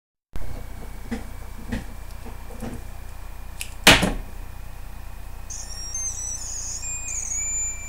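A few light clicks and one louder, sharp scrape-like burst about four seconds in, then a thin, high-pitched electronic melody of stepping notes starts about five and a half seconds in.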